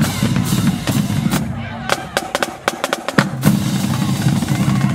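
Marching drumline of bass drums, snare drums and crash cymbals playing a loud cadence. About a second and a half in the dense drumming breaks into a run of single sharp unison hits, and the full beat picks up again about three and a half seconds in.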